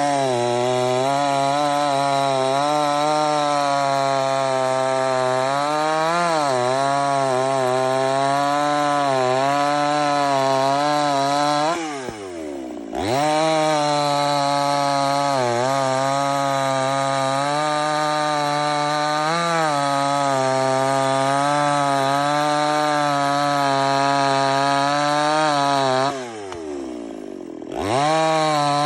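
Chinese two-stroke petrol chainsaw run at full throttle, its pitch wavering and sagging under load as it cuts. Twice it drops off to idle for about a second and revs straight back up.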